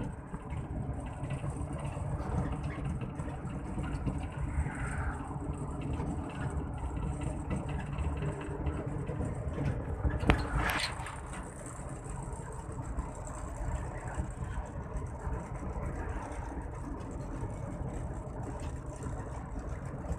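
Steady engine and road noise heard from inside a moving vehicle cruising on a highway. About ten seconds in there is a sharp knock followed by a brief whoosh.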